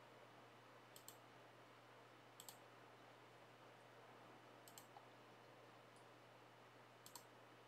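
Faint computer mouse clicks in close pairs, four times over the few seconds, over a low hiss and a steady hum.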